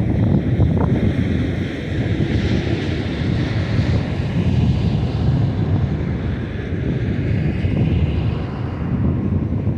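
BNSF autorack freight train rolling past with a steady, heavy rumble, and a higher rushing hiss that swells about midway. Heavy wind buffets the microphone throughout.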